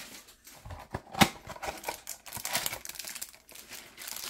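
A cardboard trading-card hanger box being torn open and its cellophane-wrapped stack of cards handled, with crinkling and rustling of paper and plastic. A single sharp snap comes about a second in.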